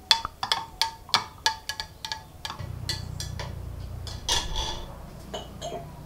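Quick uneven clinks of a hard ringing object, about four a second for two seconds, each ringing at the same pitches. A low steady hum follows, with one louder ringing clink a little past four seconds.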